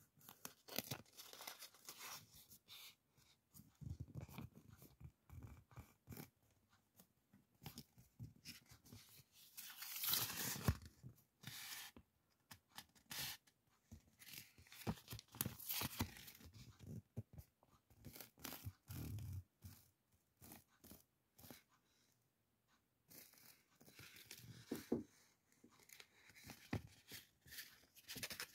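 Sheets of printed paper rustling and crinkling in the hands as they are handled and flipped through, with a louder rustle about ten seconds in.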